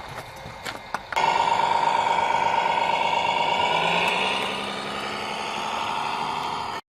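Radio-controlled model truck running: a steady engine-like drone with many tones. It starts suddenly about a second in, drops a little past the middle and cuts off abruptly near the end.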